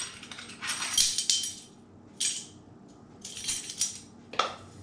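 Metal measuring spoons on a ring clinking, and dry crushed red pepper flakes shaken from a spice jar into a spoon in a few short rattling shakes. A sharp click at the start and another near the end.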